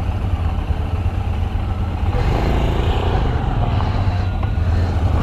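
Royal Enfield single-cylinder motorcycle engine running with a steady low thump, getting louder about two seconds in.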